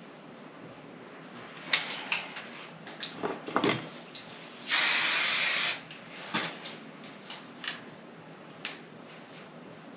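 An aerosol hairspray can sprayed in one steady hiss lasting about a second, near the middle. Before and after it, a few light clicks and one duller knock from things being handled.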